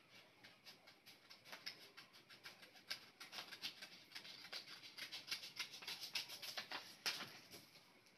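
Sheets of craft paper being handled: faint, rapid, irregular rustling and crinkling, busiest in the middle.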